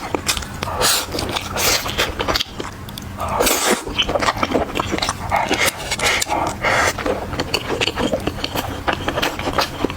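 Close-miked eating sounds: chewing and wet mouth noises, with quick clicks throughout and louder stretches about a third of the way in and past the middle.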